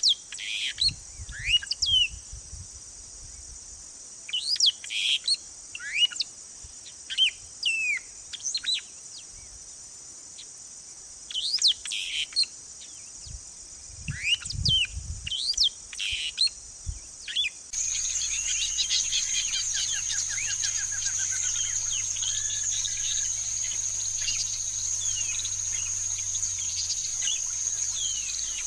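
Songbird calling: clusters of short, sharp whistled notes that sweep up and down, over a steady high insect hiss. About eighteen seconds in, the sound changes to a louder, even insect buzz with many faint bird chirps in it.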